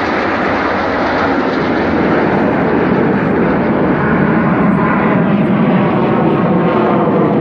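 Loud, steady jet noise from a formation of Aermacchi MB-339 single-turbojet trainers passing over, growing a little louder over the first two seconds and then holding.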